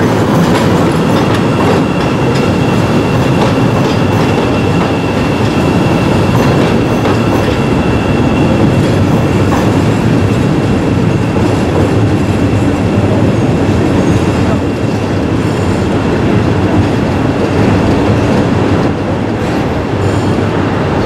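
Chicago 'L' rapid-transit trains running over the elevated steel track and round a tight curve, with a heavy steady rumble and wheel clatter. A thin high wheel squeal rings through the first half.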